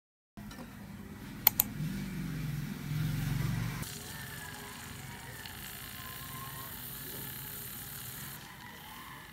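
Handheld battery milk frother whisking milk in a plastic measuring jug: a faint low motor hum with two quick clicks about a second and a half in, then a steady faint hiss.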